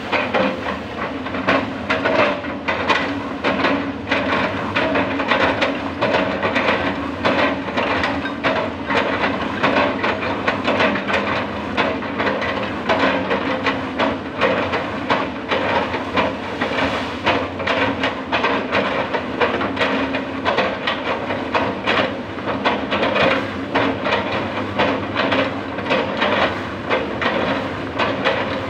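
Hydraulic excavator engine running steadily under load while the machine chips felled oil palm trunks, with a dense, irregular run of knocks and cracks from the wood being chopped.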